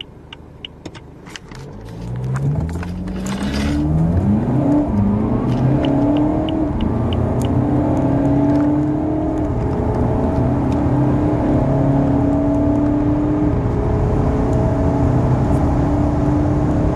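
A car's 2.0-litre four-cylinder turbodiesel engine, heard from inside the cabin. It idles with a few clicks, then about two seconds in it starts accelerating hard from a standstill. The pitch climbs and drops back at each upshift.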